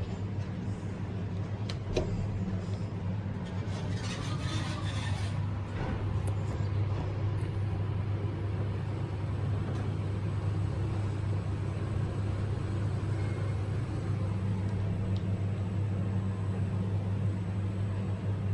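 Schindler 5500 machine-room-less passenger lift travelling between floors, heard from inside the car as a steady low hum. A few clicks and a short burst of rustling noise come in the first six seconds.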